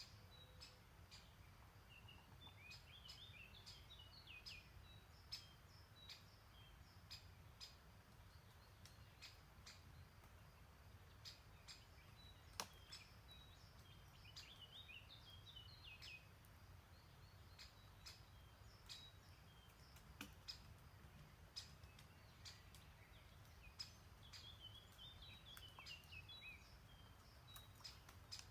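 Faint songbird singing a short falling phrase three times, about ten seconds apart, amid scattered sharp ticks and chirps, over a steady low rumble.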